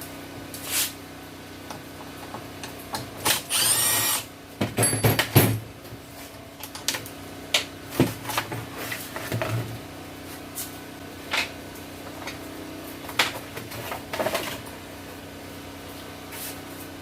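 Power drill whirring in two short runs a few seconds in, backing out the fasteners of a mini bike's fenders. Scattered knocks and clinks of tools and metal parts follow.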